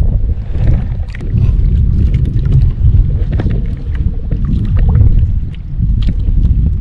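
Steady low rumble of wind and sea around a small outrigger fishing boat, with scattered light clicks and knocks from handling on board.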